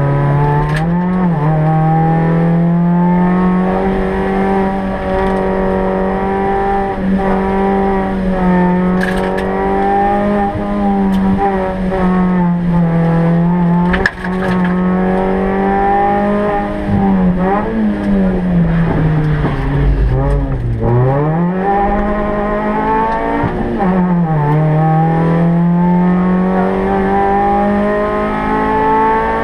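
Suzuki Swift Sport rally car's four-cylinder engine, heard from inside the cabin, running hard on a rally stage. The pitch holds high, then dips and climbs again several times as the driver shifts and brakes. The deepest dip comes about twenty seconds in, and a few sharp knocks sound along the way.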